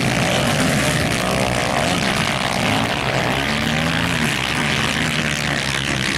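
Several dirt-bike engines running and revving on a motocross track, their pitches rising and falling over one another, under a steady loud haze of noise.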